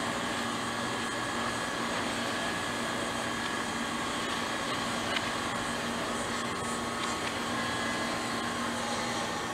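Steady mechanical whirring hum with a constant low drone, with one brief click about five seconds in.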